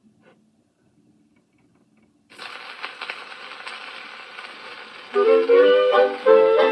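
Gramophone record beginning to play a 1940 song: a few faint clicks, then steady surface hiss from the disc about two seconds in, and the loud instrumental introduction of the song starting about five seconds in.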